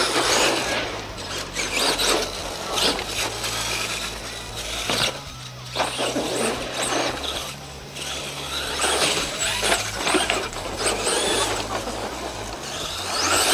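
Electric RC monster truck's motor whining as it revs up and down, with scattered knocks and clatter as the truck lands and bounces.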